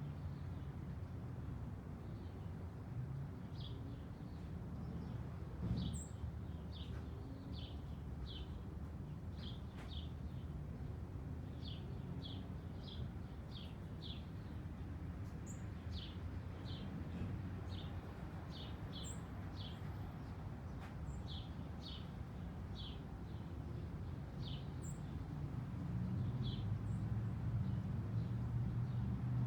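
Small birds chirping: short, high calls repeated one or two times a second, with a few higher notes, over a steady low rumble that grows louder near the end.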